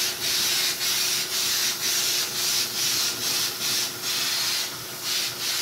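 Siphon-feed compressed-air spray gun spraying finish onto wood, a loud hiss in short repeated bursts, about two or three a second, as the trigger is worked on each pass.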